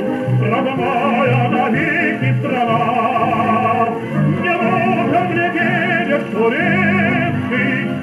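Old recording of a male singer with a strong vibrato over orchestral accompaniment, its low notes falling about once a second, played from a record on a vintage record player. The sound is thin, with no treble above the upper voice range.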